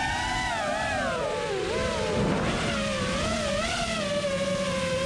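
FPV freestyle quadcopter's Xing 2206 1700Kv brushless motors spinning Ethix S4 props, a whine whose pitch rises and falls with the throttle. It dips low about two seconds in as the throttle is eased off, then climbs back.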